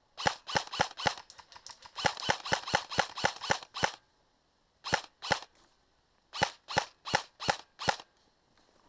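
Airsoft gun firing single shots in quick strings, about three to four sharp cracks a second, with two short pauses between the strings.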